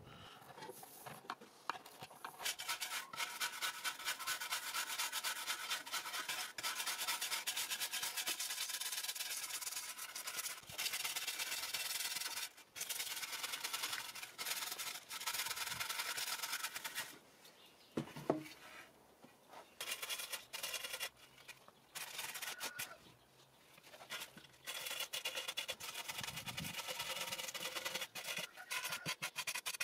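Hand steel wire brush scrubbing soft, rotten walnut wood out of a slab's hollow: a fast, scratchy rasping in quick back-and-forth strokes. It stops briefly several times in the second half.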